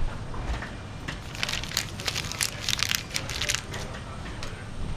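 Irregular crinkling and rustling: a quick, uneven run of crackles over about three seconds, then it eases off.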